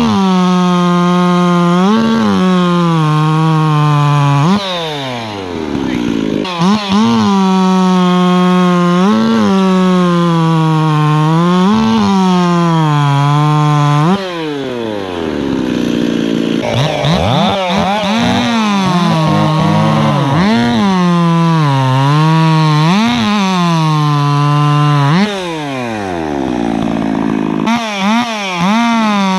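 Modified two-stroke chainsaw held at full throttle through a series of cuts. Its pitch sags each time the chain loads into the wood and recovers between cuts. The revs fall away after each run, and a saw winds up again near the end.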